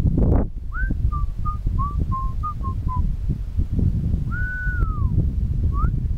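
A person whistling a tune: a quick run of short notes stepping up and down, then a longer held note that bends downward, then a brief rising whistle near the end. Wind rumbles on the microphone throughout.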